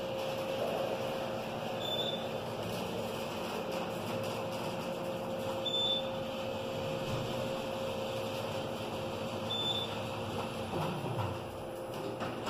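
Passenger elevator car travelling between floors: the steady hum and rumble of the ride, with three short high beeps about four seconds apart.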